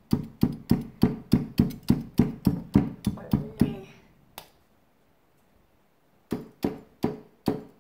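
Kitchen knife point stabbing repeatedly at a solid ice ball made by freezing water in a balloon, trying to crack it: quick sharp knocks about four a second for nearly four seconds, a pause of about two seconds, then four slower strikes near the end.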